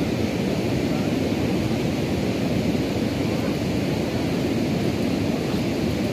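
Steady rushing of river water pouring over a low concrete weir.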